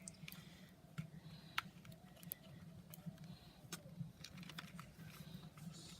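Faint, scattered clicks and light taps from slime-making utensils and containers being handled, over a low steady background hum.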